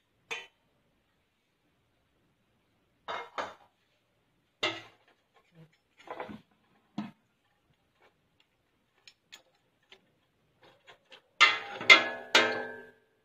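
Stainless steel pots and metal utensils clinking and knocking in a few separate taps. Near the end comes a louder run of clanks and scrapes with a metallic ring as a metal spoon stirs raw chicken pieces in a steel pot.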